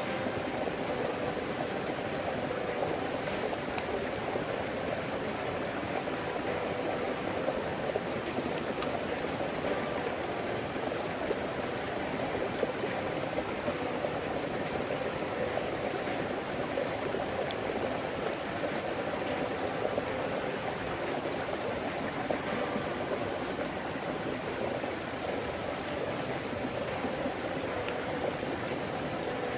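A mountain stream flowing steadily: an even, unbroken rush of water, with a few faint sharp clicks.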